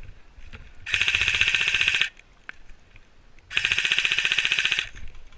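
Airsoft electric rifle, a Krytac CRB, firing two full-auto bursts of rapid, evenly spaced shots, each about a second long, the second coming about three and a half seconds in.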